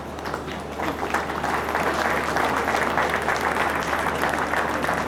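Applause from many people clapping by hand, swelling about a second in and then holding steady.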